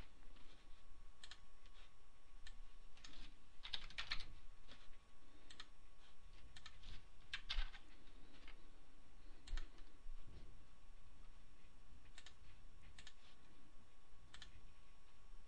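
Typing on a computer keyboard: scattered, irregular key clicks, some in quick clusters, with a faint steady tone underneath.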